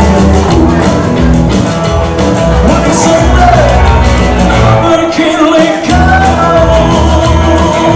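Live rockabilly music: a man sings over electric guitar and a pulsing upright double bass. The bass drops out briefly about three-quarters of the way through, then comes back in.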